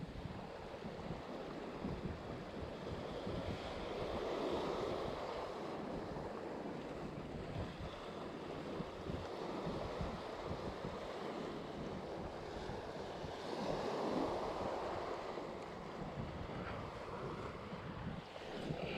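Sea surf breaking on a rocky shore, with wind buffeting the microphone. The surf swells louder twice, a few seconds in and again about two-thirds of the way through.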